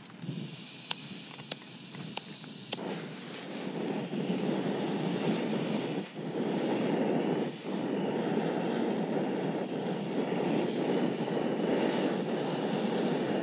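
Four sharp clicks of a camping gas stove's igniter, then the remote-canister burner lights about three seconds in and runs with a steady rushing hiss under a pot of water being heated.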